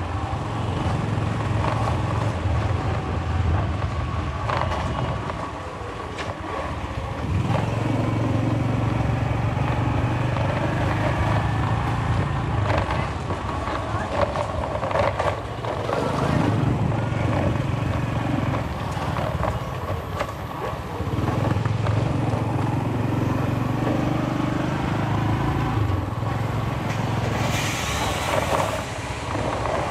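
Scooter engine running while riding, its sound swelling and easing several times, with a few knocks from the bumpy road.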